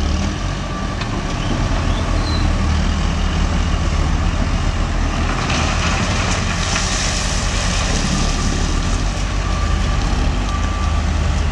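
Diesel engines of heavy construction machinery running, a deep, steady rumble, with a burst of hiss about halfway through.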